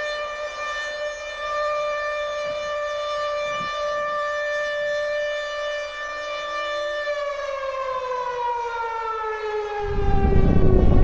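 Air-raid siren wailing at a steady pitch, then winding down from about seven seconds in. About ten seconds in, the deep rumbling blast of a nuclear explosion comes in and becomes the loudest sound.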